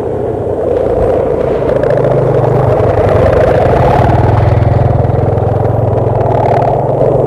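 Sendaren kite hummers on large gapangan kites droning in the wind overhead: a low hum with a higher buzz over it, swelling over the first two seconds and then holding steady with a fluttering pulse.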